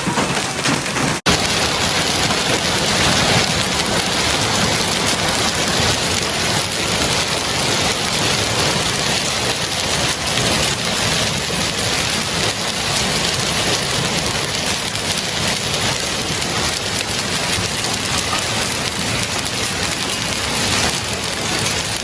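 Hail pelting down in a dense, steady clatter of countless small impacts. The sound breaks off for an instant about a second in and resumes at the same level.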